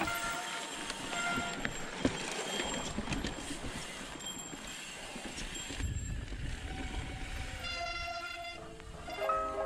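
Riding noise from a mountain bike descending a dirt singletrack: a steady noisy rumble that swells into a heavier low rumble about six seconds in. The last held notes of a song fade in the first couple of seconds, and a new music track starts near the end with a sustained chord and then piano-like notes.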